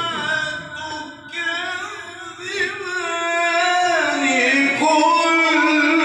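A man reciting the Quran in the melodic tilawat style, drawing out long ornamented notes that glide up and down; the voice grows louder about three seconds in.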